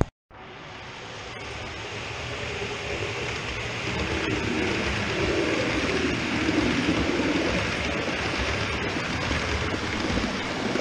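OO gauge model Pendolino running along the track: the rumble of wheels on the rails with the hum of its motor. It grows louder over the first few seconds as the train comes closer, then holds steady.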